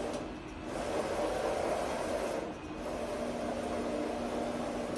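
Vanye flatbed UV printer running, its print carriage shuttling across the bed with a steady mechanical whir that dips briefly about half a second in and again about halfway through.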